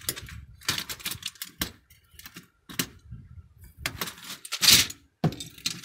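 Irregular sharp plastic clicks and clacks as keycaps are pried and popped off an old Logitech PS2 internet keyboard with a screwdriver, with the loudest clack about three-quarters of the way through.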